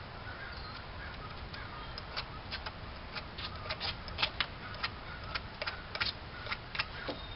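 A blade shaving a wooden bow stave to taper it, heard as a run of short, sharp scraping clicks, irregular and about two or three a second, starting about a second and a half in.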